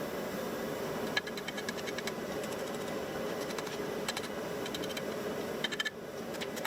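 Steady roar of a blacksmith's forge running, with short clusters of quick, light metallic ticks from small work on the hot steel.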